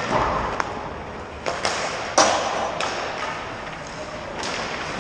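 Ice hockey sticks and pucks clacking: a string of sharp cracks of shots and pucks striking boards or the net, the loudest about two seconds in, echoing in the rink, over the scrape of skates on ice.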